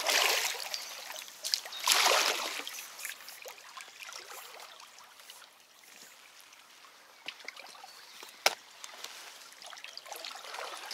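Kayak paddle strokes splashing in river water as the kayak slows: two strokes in the first few seconds, then quieter trickling water, with a few small clicks and one sharp knock a little past the middle.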